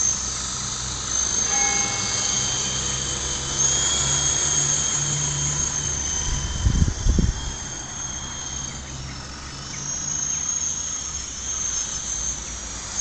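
Esky Big Lama coaxial electric RC helicopter flying overhead: a high motor whine that shifts up and down in pitch with throttle, over a low rotor hum. A brief low rumble about seven seconds in.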